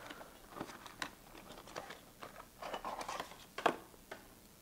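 Cardboard packaging and a bundled camera power cable being handled, with quiet rustling and crinkling and light taps and clicks. The sharpest tap comes about three and a half seconds in.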